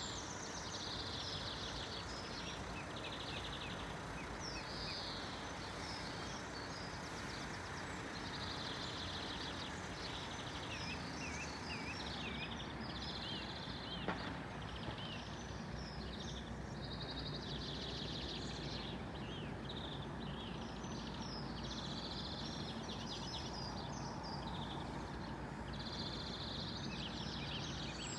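Birds singing in a dawn chorus, short trilling phrases coming one after another, over a steady background hum. A single brief tick about halfway through.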